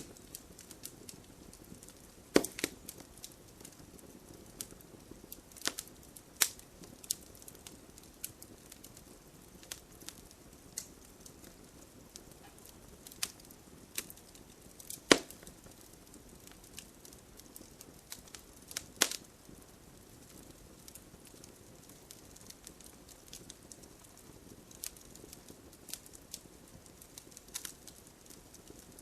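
Wood fire burning in a fireplace, crackling with scattered sharp pops over a low hiss; the loudest pop comes about halfway through, with a few other strong ones near the start and about two-thirds of the way in.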